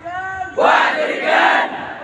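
A large group of boys shouting together in unison, two loud drill shouts about a second apart after a single held call.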